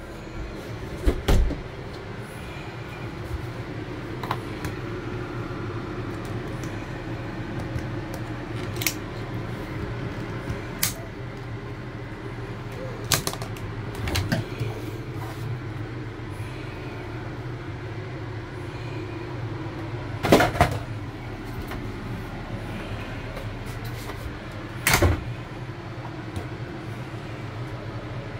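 A steady mechanical hum inside a small travel trailer, broken by a handful of sharp knocks and clicks. The loudest knocks come about twenty and twenty-five seconds in.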